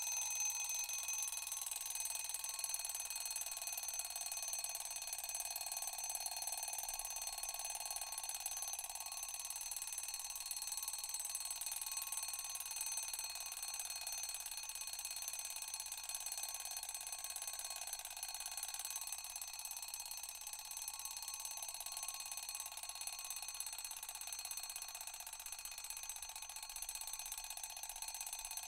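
An alarm ringing continuously with many steady high tones, without pauses.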